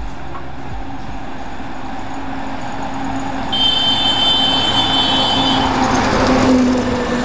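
Heavy tanker truck approaching and passing close by, its engine and tyre noise growing steadily louder and peaking as it goes past. A high-pitched steady tone sounds for about two seconds in the middle.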